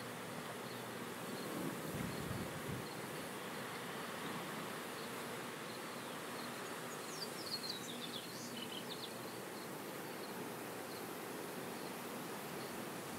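Insects buzzing steadily, with a short run of bird chirps about seven seconds in.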